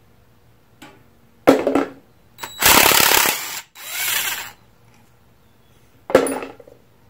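Cordless impact wrench hammering a bearing-cap bolt loose on a Ford 9-inch differential third member: about a second of hammering, then a softer run as the bolt spins out. A sharp clank comes about a second and a half in and another near the end.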